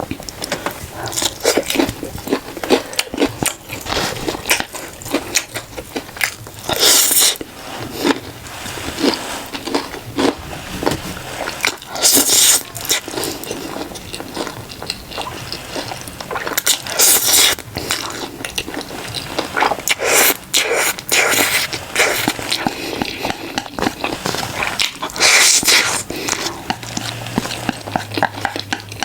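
A person eating: continual chewing and biting with wet clicks, and about five louder noisy bursts spread through, each about half a second long.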